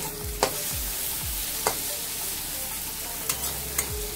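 Sliced onions sizzling in hot oil in a metal kadai, with a spatula stirring them and scraping and knocking against the pan several times.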